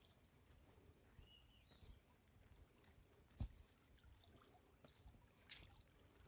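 Near silence: faint outdoor ambience with a steady high thin tone, a soft thump about halfway through and a sharp click near the end.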